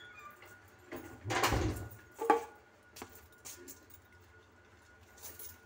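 Handling noise from someone working at the sink cabinet: a short scraping rustle about a second in, then a sharp knock, followed by a few faint clicks.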